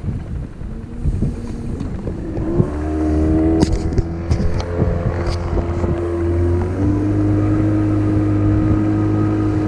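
Boat motor running: about two and a half seconds in an engine tone comes up, rises in pitch and holds steady, shifting slightly near seven seconds, with a few knocks against the hull early on and wind rumble underneath.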